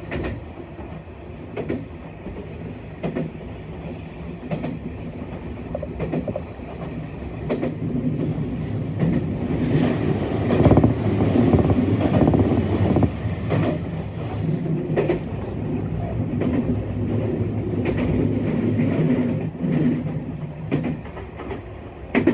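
Train wheels on track heard from inside a passenger car: a steady rumble with a rail-joint clack about every second and a half. It gets louder in the middle, while the train runs through a tunnel.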